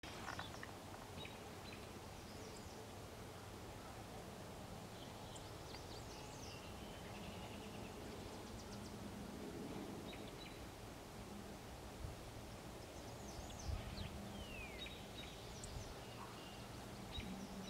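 Faint outdoor background noise with songbirds chirping on and off, and a few soft thumps about two-thirds of the way through.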